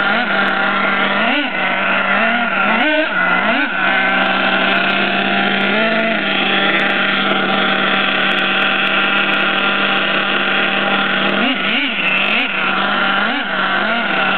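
Twin-cylinder nitro engine of an HPI Savage RC monster truck being broken in: a steady idle with short, light-throttle blips that rise and fall in pitch, several in the first few seconds and again near the end.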